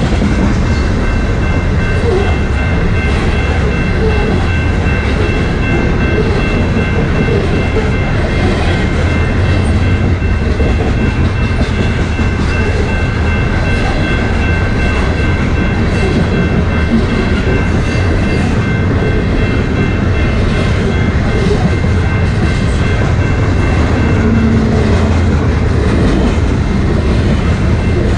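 Coal train hopper cars rolling steadily past, a continuous rumble of wheels on the rails with a faint steady high ringing above it.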